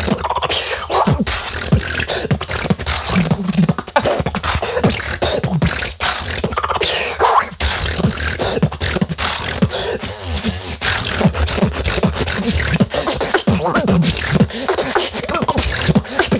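Solo beatboxing: a fast, steady stream of mouth-made kick, snare and hi-hat hits with short deep bass sweeps, a vocal cover of an electronic dance track.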